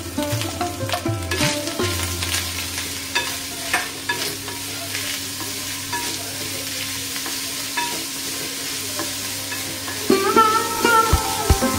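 A wooden spatula stirring and scraping grated coconut, jaggery and dry fruits in an aluminium kadhai over the heat, the mixture sizzling lightly. Background music comes in near the end.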